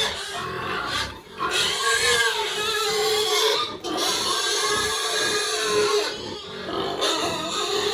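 Pigs calling over and over, with pitched, wavering cries.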